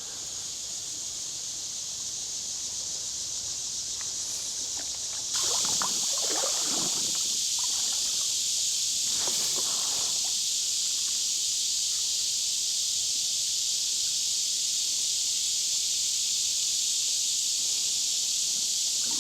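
Steady high-pitched buzzing of an insect chorus that gets louder about five seconds in, with a few faint softer sounds underneath.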